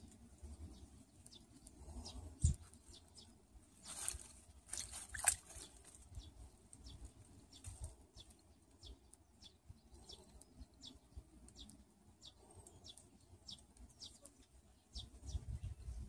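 A Jindo puppy's paws and muzzle splashing and rustling in a shallow weedy puddle, with two louder splashes about four and five seconds in. Faint short high chirps repeat throughout.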